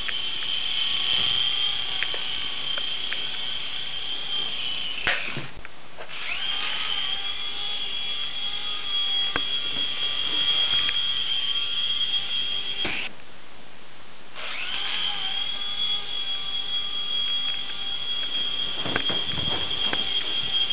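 Mini remote-control helicopter's small electric motor and rotors in flight, a steady high-pitched whine. It cuts out twice, about five and thirteen seconds in, and winds back up each time.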